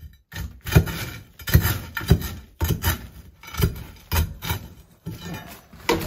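Broken concrete rubble crunching and scraping as a steel bar is jabbed into it and loose chunks are dug through by gloved hand, in repeated strokes about two a second.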